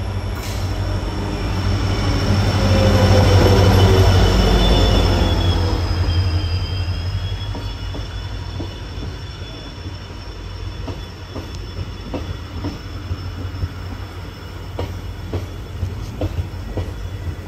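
Passenger train arriving at a platform: a heavy rumble that is loudest as the leading cars pass, with high brake and wheel squeal falling in pitch as it slows. In the later part, scattered knocks of wheels over rail joints sound as the train creeps toward a stop.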